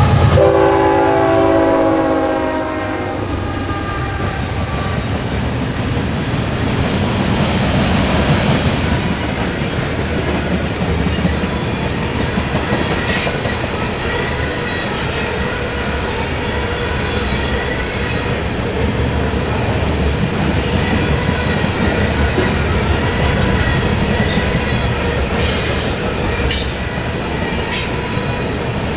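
GE ES44AC diesel-electric locomotive passing close with its horn sounding, the horn stopping about three seconds in. Then covered hopper cars roll by with a steady rumble of steel wheels on rail, clacking over rail joints, with a short high wheel squeal near the end.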